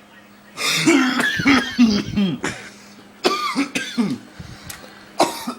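Person in a coughing fit: two long runs of coughs with strained, voiced gasps between them, then a single sharp cough near the end.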